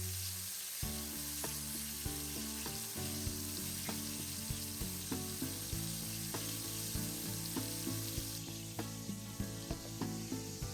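Blueberry donut batter frying in oil with a steady sizzle, over quiet background music with a regular beat.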